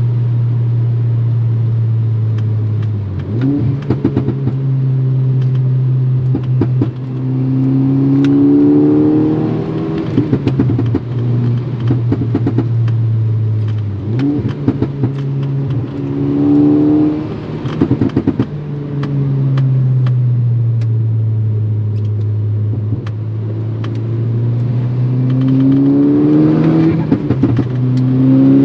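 Turbocharged four-cylinder engine of a modified MK6 Volkswagen Golf R with an aftermarket turbo-back exhaust, climbing through the revs under acceleration and dropping back at gear changes several times, with scattered sharp clicks.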